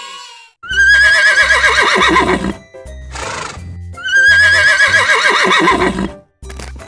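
Horse neighing twice, each whinny about two seconds long, starting high and wavering downward, with a short breathy blow between them. A children's background music beat runs underneath.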